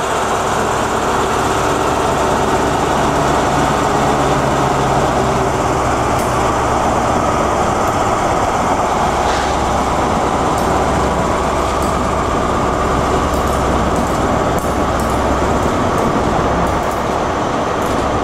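Class 43 HST power car's diesel engine running as it moves past, its steady low tones fading about halfway through. The Mk3 coaches then roll by, with a few sharp wheel clicks near the end.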